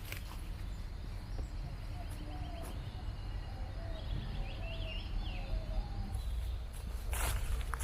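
Faint bird calls, a few short chirps and trills in the middle, over a steady low rumble; footsteps on the woodland floor start up near the end.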